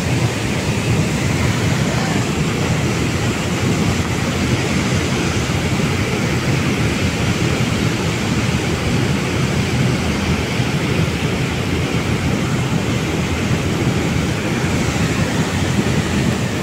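Steady, loud rush of water from a dam's open spillway gates and the fast, swollen river below them.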